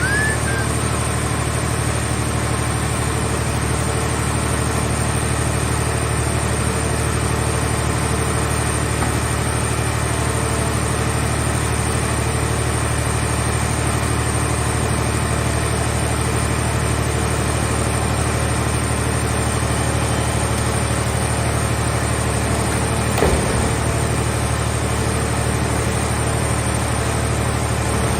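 Engine of a scrap car shell baler running steadily at an even pitch, with a single short knock about 23 seconds in.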